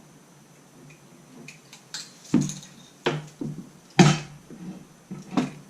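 Metal parts of an antique Corona typewriter being worked by hand: a series of irregular sharp metallic clacks and clicks, the loudest about four seconds in. Some of its parts are loose and out of adjustment.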